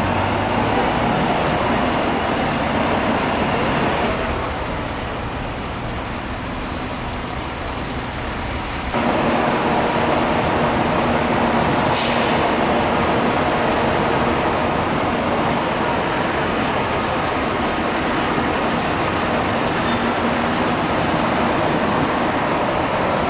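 Steady rumble of idling fire trucks and street traffic, with a short sharp hiss about twelve seconds in. The background changes abruptly twice, at about four and nine seconds in.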